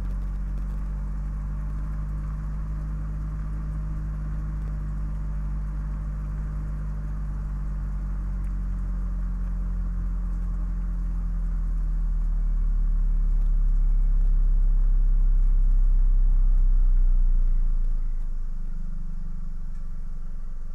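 Car driving along a road: steady low engine hum and tyre noise picked up by a camera mounted outside the car. The low rumble swells about twelve seconds in and eases off again a few seconds before the end.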